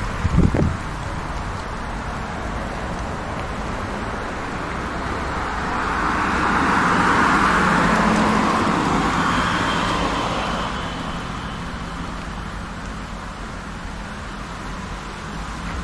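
Street traffic, with one vehicle passing close and loudest about seven or eight seconds in. There is a short low thump about half a second in.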